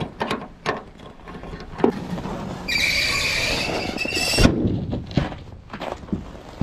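Hinges of an enclosed trailer's rear ramp door squealing for about a second and a half as the ramp swings down, then a heavy thud as it lands on the snow. A few knocks come first.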